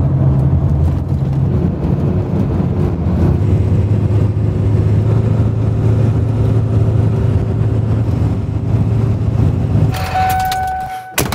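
Ford F-350's 7.3 L Powerstroke diesel running steadily, heard from inside the cab while driving, then switched off with the ignition key about ten seconds in. A short electronic chime tone follows, then a sharp click near the end.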